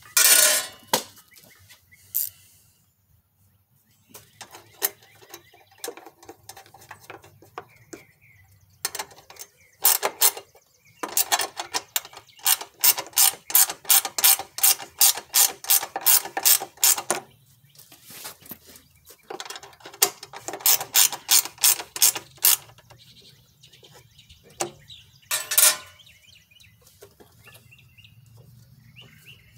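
Ratchet wrench clicking as bolts are run in, in long steady runs of two or three clicks a second, with a loud sharp knock just after the start.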